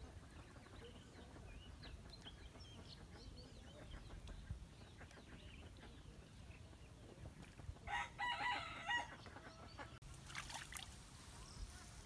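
A rooster crows once, a call of about a second, about eight seconds in, over faint scattered chirps of small birds. A short rustling noise follows near the end.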